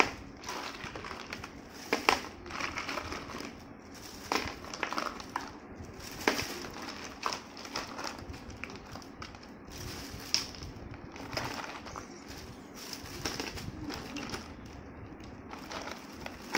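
Ice cubes being picked from a plastic ice tray and dropped into a plastic bag: irregular clinks and knocks of ice, with the bag rustling and crinkling.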